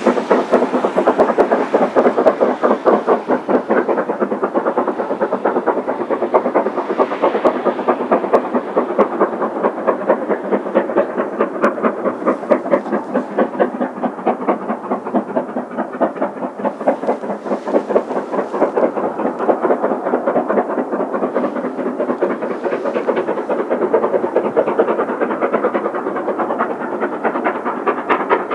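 Two QJ-class steam locomotives double-heading a heavy freight up a steep grade, their exhausts beating in a rapid, steady rhythm: both engines working hard on the climb.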